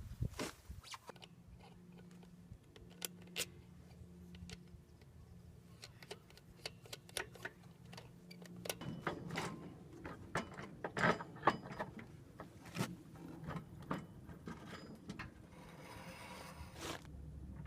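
Scattered clicks and clinks of tools and metal parts being handled during work on a scooter, over a faint steady hum, with a brief hiss near the end.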